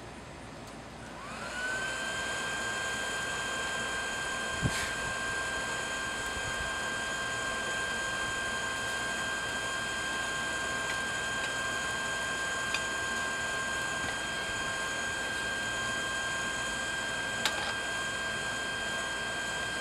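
Electric air blower on a forge, switched on about a second in and spinning up to a steady high whine, forcing air into the fire to bring the steel to heat. A few light clicks sound over it.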